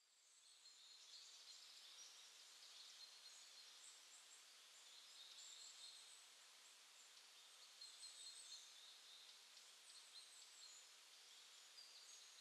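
Faint outdoor ambience of small birds chirping over a soft steady hiss, fading in at the start.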